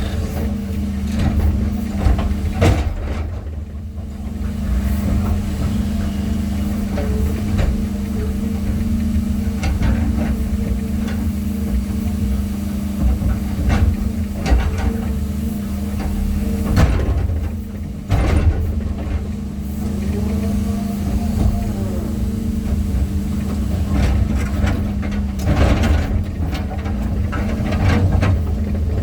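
A heavy machine's engine running steadily with a deep hum, and occasional sharp knocks a few times over.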